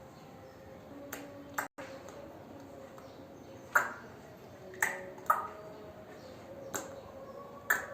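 About seven sharp taps on a hard object, irregularly spaced, each with a brief ringing tail, over a faint steady hum.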